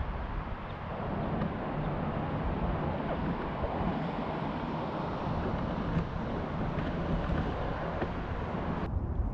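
Wind rumbling on the microphone over the swish and slosh of a kayak paddle working the water as the boat is spun in a full circle. The hiss thins out suddenly near the end.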